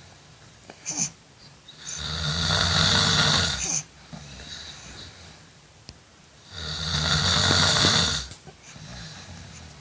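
A person snoring in sleep: two long snores about four and a half seconds apart, each lasting nearly two seconds, with quieter breathing between them.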